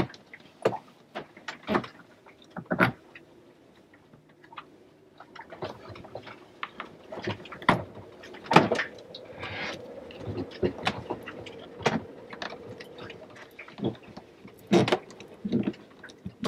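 Irregular clicks, knocks and small rattles as hands handle a spin-on diesel fuel filter canister and its hose, screwing the filter onto its metal housing. A faint steady hum runs through the middle.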